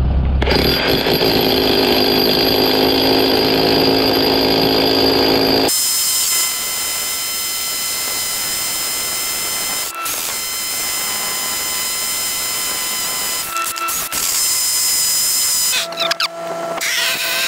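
Corded rotary hammer drill boring holes into a concrete slab. Its heavy hammering runs for about the first six seconds, then gives way to a lighter, steadier running with brief breaks, and it stops near the end.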